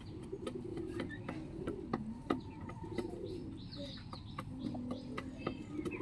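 Chickens clucking in low, short phrases between crows, with many sharp ticks scattered through.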